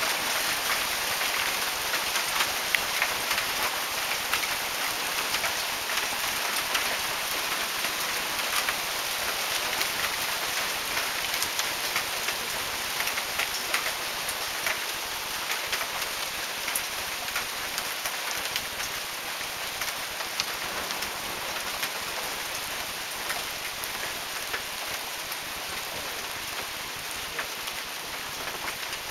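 Heavy hail falling: a dense steady hiss thick with sharp ticks of hailstones striking the ground and nearby surfaces, easing off slowly.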